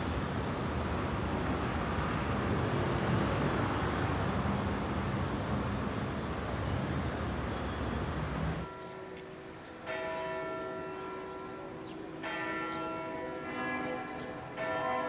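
Steady outdoor city background noise, which gives way about nine seconds in to church bells ringing. The bells strike several overlapping pitches, with new strokes starting about every two seconds.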